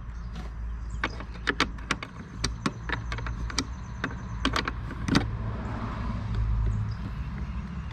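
Irregular sharp metallic clicks and taps of hand tools on fittings while working on a car's brake master cylinder, over a steady low hum.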